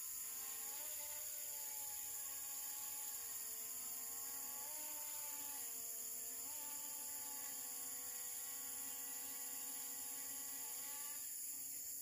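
Quadcopter drone's propellers humming overhead, the pitch of the hum shifting up and down several times as it changes throttle. The hum stops near the end.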